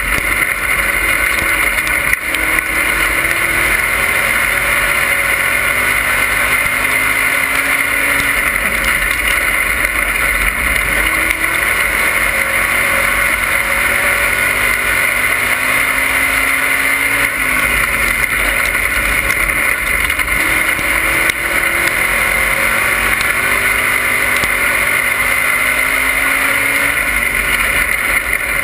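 Dirt-track race car engine running hard inside the caged cockpit, its note rising and falling every few seconds as the car laps the oval, under heavy rushing noise.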